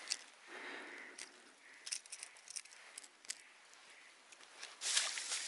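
Faint handling noises of a small pike being unhooked by hand: soft rustling of gloves and clothing with scattered small clicks. Near the end a louder, longer burst of rustling noise sets in.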